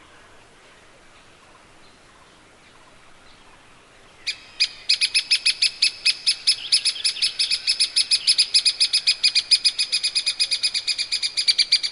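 Grey-capped pygmy woodpecker calling: about four seconds in, a long, fast, even series of sharp, high call notes begins, about eight a second, and keeps going to the end. Before it there is only faint background hiss.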